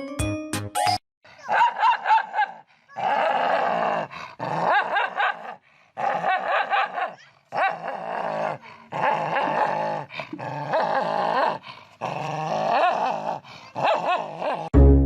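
A dog vocalizing in a run of short, pitch-bending bouts of a second or two each, with brief pauses between them.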